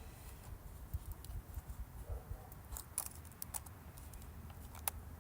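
Faint, scattered clicks and taps of plastic Sony Vaio laptop parts being handled and pulled at, a handful of them spread over a few seconds.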